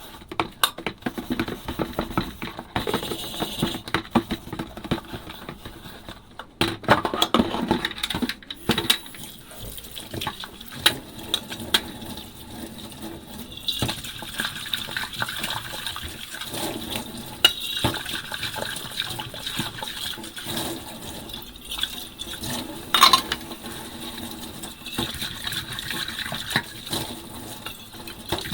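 Dishes being washed by hand in a sink: tap water running and splashing, with sharp clinks of ceramic and glass knocking together. The water flow becomes steadier about halfway through.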